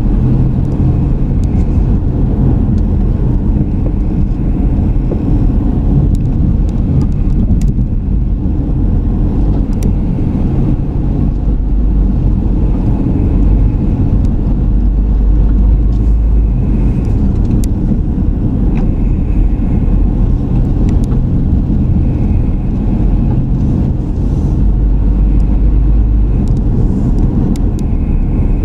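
Car driving along a road, heard from inside the car: a steady low rumble of engine and tyres on the road surface.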